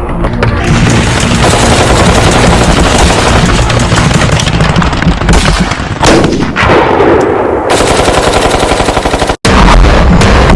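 Paintball markers firing in rapid, overlapping volleys of shots, with the sound breaking off for an instant near the end.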